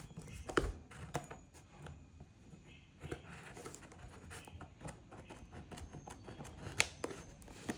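Cardboard box being handled while its seal tape is cut: scratchy scraping and rustling with a few sharp clicks.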